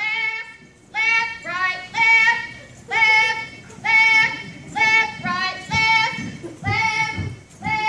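Children singing a song in a series of short held notes with pauses between phrases, without clear instrumental backing.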